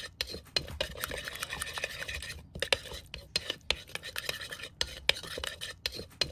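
A utensil stirring and scraping in a dish, with many short clicks and scrapes broken by several brief silent gaps.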